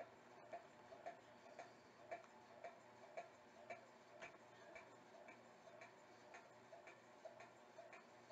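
Faint, evenly spaced ticking, about two ticks a second.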